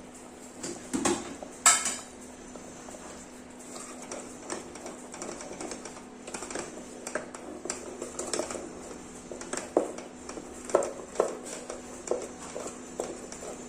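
Metal utensil clinking, knocking and scraping against a cooking pot during stirring, with a sharp ringing clink about two seconds in. A steady low hum runs underneath.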